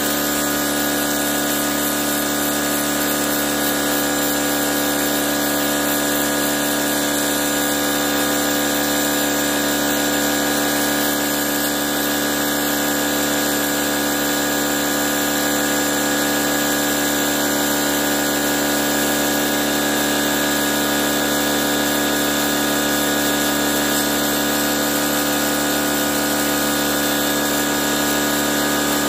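Ryobi electric pressure washer running steadily, its motor and pump giving a constant hum of several steady tones, with the hiss of the high-pressure jet spraying water onto the wet concrete.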